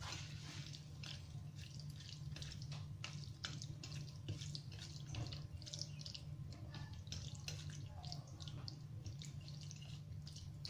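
Hands kneading and squishing wet raw meat pieces with seasoning in a stainless steel bowl: a faint, irregular run of small wet smacks and squelches, over a steady low hum.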